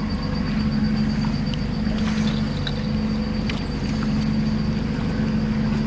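A steady engine drone with an unchanging pitch, and a few faint light clicks over it.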